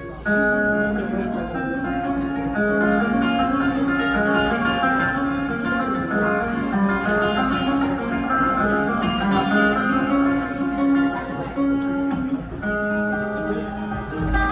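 Live rock band playing an instrumental introduction led by guitar, with plucked and strummed notes over a steady backing.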